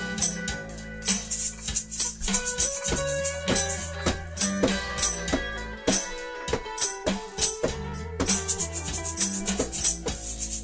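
Live band music: an electric guitar and hand percussion rattling in a steady rhythm, with no singing. The low end drops out briefly a little past halfway and then comes back.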